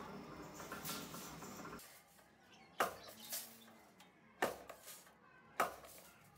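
Workshop machinery din that stops suddenly about two seconds in. Then three sharp metallic clacks a second or so apart as perforated steel sheet for oil-filter centre tubes is cut on a sheet-metal shear.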